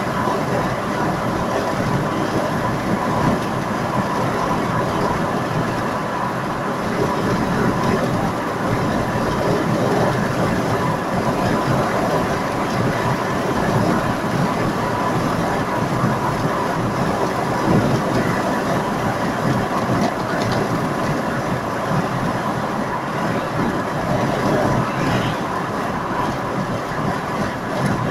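Road noise heard inside a car cabin at motorway speed: a steady rumble of tyres and wind.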